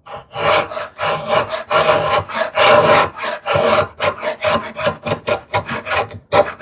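Router plane blade paring across a wooden tenon cheek in a series of short scraping strokes, quicker and shorter in the second half, taking thin shavings to bring an over-thick tenon down to a snug fit in its mortise.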